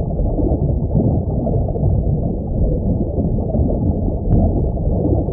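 Underwater ambience: a steady, muffled low rumble and wash of water, with no high sounds at all.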